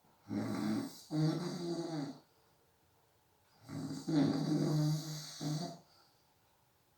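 A person snoring in sleep: two long, low-pitched snores about three and a half seconds apart, each with a short break in the middle, and quiet between breaths.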